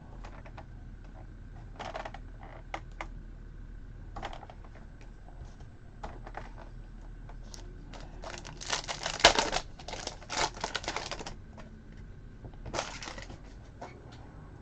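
Trading cards being handled and flipped through: scattered light clicks and snaps of card stock, with a longer stretch of rustling and sliding about eight seconds in and a shorter one near the end.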